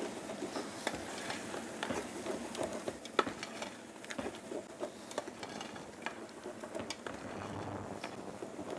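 Wooden spoon stirring risotto rice in a stainless-steel stockpot, the wine and stock simmering, with scattered light scrapes and taps against the pot.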